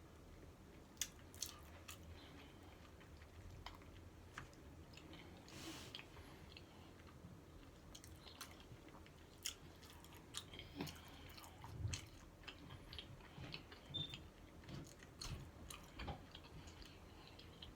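Close-up chewing of a taco, with scattered short, sharp mouth clicks and smacks.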